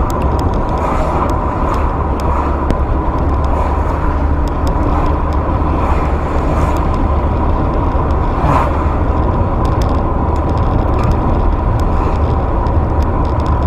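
Steady low engine and road rumble inside a car, picked up by a dash camera, with a faint steady whine over it.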